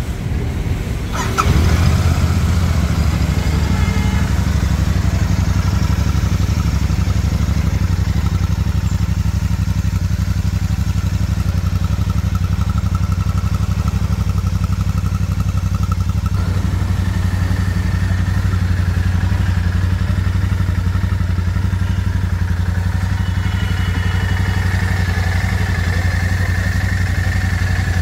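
Royal Enfield Super Meteor 650's 648 cc parallel-twin engine, started on the electric starter: it catches about a second and a half in and then idles steadily.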